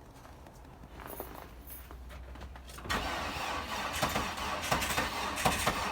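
Car engine being cranked by its starter from about three seconds in, turning over without catching.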